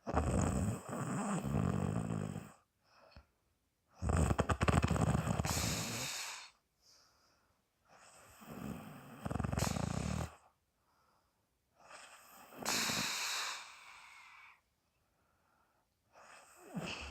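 A woman snoring in deep sleep: four long snoring breaths about every four seconds, some with a rattling flutter, each trailing into a breath blown out through the mouth, and a fifth starting near the end.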